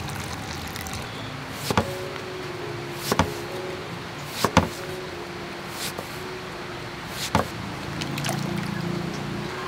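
A knife slicing through peeled breadfruit and striking a wooden chopping board: five sharp knocks, evenly spaced about a second and a half apart, over a steady background hiss.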